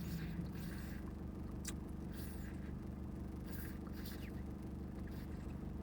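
Steady low background hum, with a few faint short clicks and brief soft rustles.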